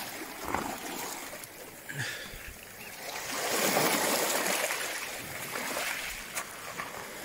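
Small waves washing in over a pebble shore, the water fizzing and splashing among the stones. It swells about halfway through as a wave rushes right in, then eases off.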